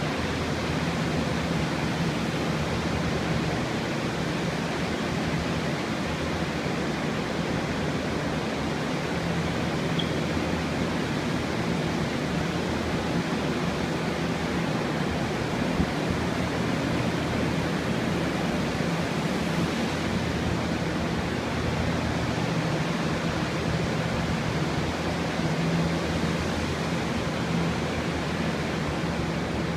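Several water-damage restoration air movers (floor blower fans) running together, a steady rush of air over a constant low hum, drying out a flooded floor.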